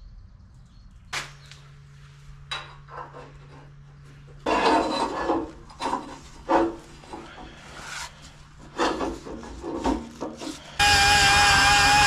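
Hand work on steel inside a homemade log splitter's welded beam: a few sharp knocks, then irregular bursts of metal scraping and rubbing against steel. Music starts near the end.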